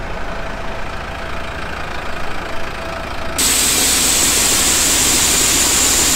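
A diesel truck idling. About three and a half seconds in, a loud steady hiss sets in suddenly as shelled corn pours from a raised dump trailer's gate onto the grate of a grain auger hopper, with the engine still running underneath.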